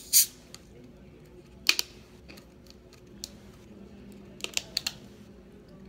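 Screw cap of a plastic Pepsi cola bottle being twisted by hand. A short, loud crackle comes just after the start, then sharp plastic clicks about two seconds in and a quick run of three or four clicks near the end.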